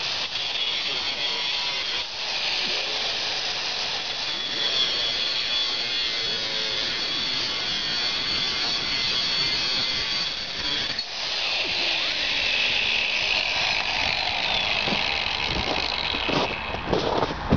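Corded angle grinder with a cutoff wheel cutting through a piece of steel, a steady high-pitched whine, with a brief dip partway through and stopping near the end.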